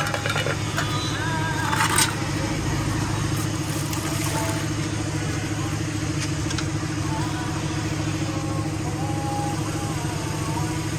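Street noise dominated by a steady engine hum, with faint voices in the background and a sharp metallic clink about two seconds in.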